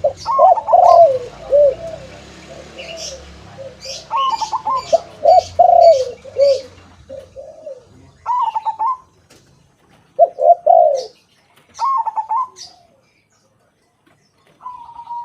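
A zebra dove (perkutut) and a white turtle dove (derkuku) cooing in repeated phrases, one bout after another with short pauses and a longer gap near the end. Small birds chirp in short high notes.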